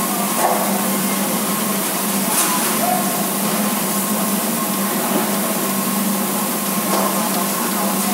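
Steady machine running noise: a constant low hum under an even hiss, with a few faint clicks.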